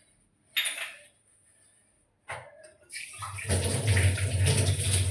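Water tap running into a small bowl being washed: a short knock or splash about half a second in, then from about three seconds a steady stream of running water.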